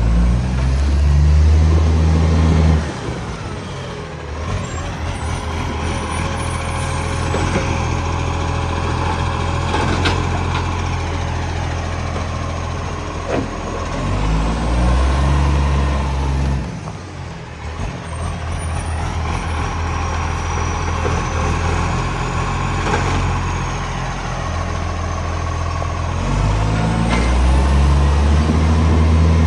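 Garbage truck's diesel engine running and revving up hard three times, at the start, about halfway through and near the end, its note coloured by a large exhaust leak. A few short sharp clicks come in between the revs.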